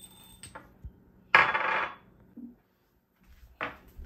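Kitchen utensils and dishes clattering, with a loud scraping clatter about a second and a half in and a sharp clink near the end.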